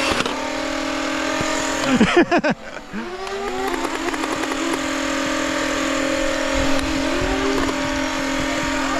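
Nerf blaster flywheel motors spinning with a steady whine. About two seconds in, a loud moment drags the pitch down, then the motors spin back up to speed.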